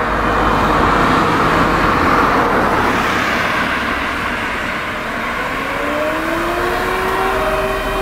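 A car drives past, its tyre and engine noise swelling and fading over the first three seconds. From about five and a half seconds in, a distant civil defense siren winds up, its pitch rising and then holding steady: the fire brigade's alarm siren calling out the volunteer firefighters.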